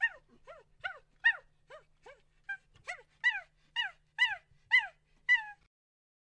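An animal giving a run of short yelping calls, each sliding down in pitch, about two a second. The last calls are the loudest, and the series stops abruptly about five and a half seconds in.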